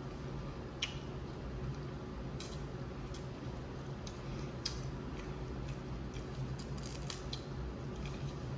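Dungeness crab shells being cracked and picked apart while eating: scattered sharp clicks and snaps at irregular intervals, over a steady low hum.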